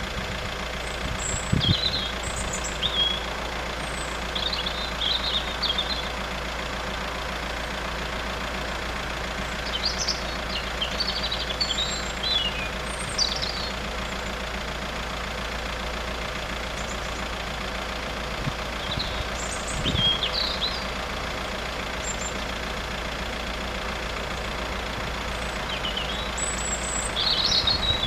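Steady low rumble of road traffic and idling engines, with short high chirps scattered through it.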